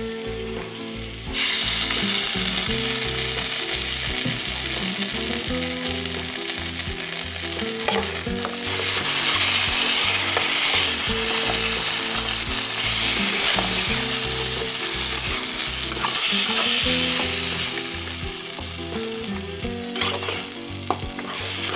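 Mutton pieces in onion-and-spice masala sizzling in oil in a nonstick kadai while a metal spatula stirs them, with occasional scrapes against the pan. This is the dry slow-frying (kosha) stage, with no water added yet. The sizzle grows louder about a second in and again around nine seconds, then eases a little near the end.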